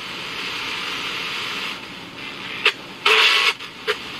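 Small FM radio receiver (an ICStation FM radio clock kit) hissing with static between stations as it is tuned across the band, broken about three seconds in by brief snatches of station audio.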